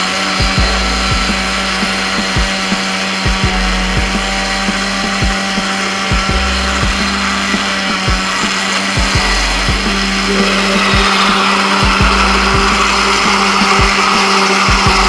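Electric countertop blender running steadily, blending mango pieces into a thick shake; its note shifts a little about ten seconds in.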